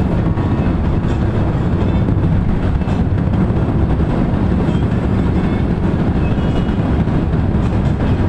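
Steady rumble of a vehicle's engine and tyre noise at highway speed, heard from inside the cabin.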